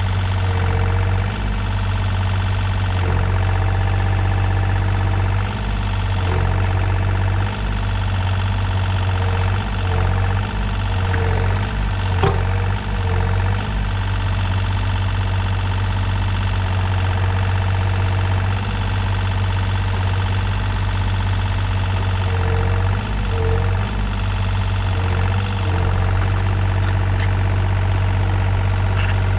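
Takeuchi TB235-2 mini excavator's diesel engine running steadily with its hydraulics working, giving a whining, tonal drone with a few short clunks, one about twelve seconds in.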